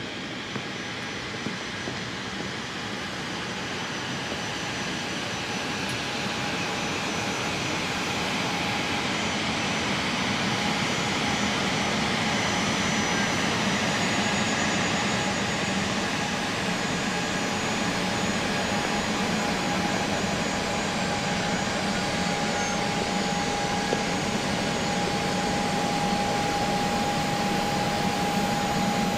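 Jet engines of a French government business jet running, growing louder over the first ten seconds or so as the aircraft comes in, then holding steady with a constant whine over the rushing noise.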